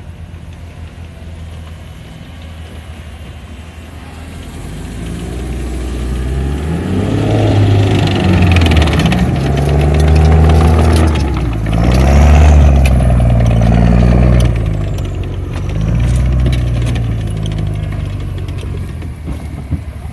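Saurer tracked armoured personnel carrier's engine running low and steady, then revving up and down several times from about six seconds in as the vehicle drives through and climbs out of a dirt pit, with clattering from the running gear at its loudest around the middle.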